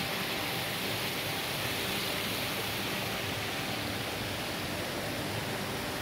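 Small woodland stream running over rocks: a steady, even rush of water.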